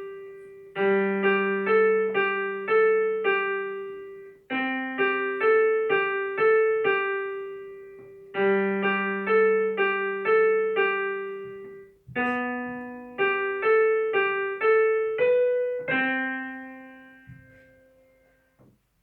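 A piano piece of quick, evenly repeated two-note figures over held low notes, in phrases that break off briefly about every four seconds. It closes on a final note that rings out and fades away a few seconds before the end.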